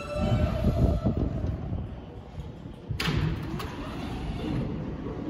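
New York City subway train rumbling in the station, loudest in the first second and a half. About three seconds in comes a sharp clack, with a second, lighter one about half a second later.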